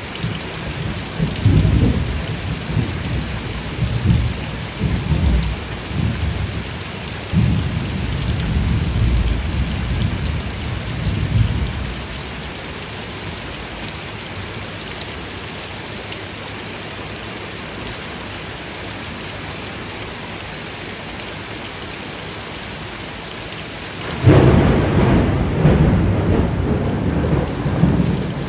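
Steady heavy rain during a thunderstorm, with rolling thunder rumbling through the first dozen seconds. The rain then carries on alone until a sudden, loud burst of thunder breaks in near the end.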